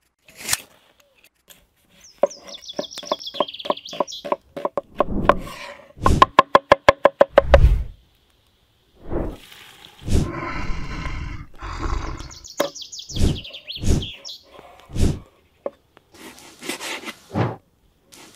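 A string of cooking sounds: scattered sharp knocks, a fast even run of about a dozen knocks near the middle, onions frying as a cleaver stirs them in a cauldron over a wood fire, and a cleaver chopping raw beef on a wooden board near the end. Birds chirp twice in between.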